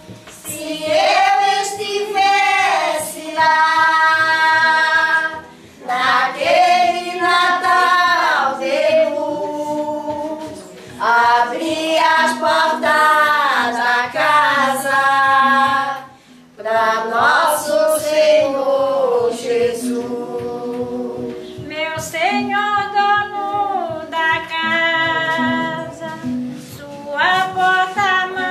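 A small group of women singing together, a traditional Christmas terno song, in long held phrases with short breaks for breath about five and sixteen seconds in.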